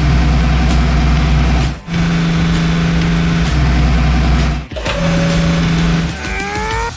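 Heavy-machinery engine sound effect running steadily for the excavator, in three stretches split by two brief cuts. Near the end a rising whine comes in.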